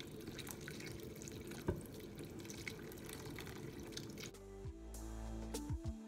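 Water pouring and trickling from a glass jug into flour, over background music. A little after four seconds in the water sound stops and the music carries on alone.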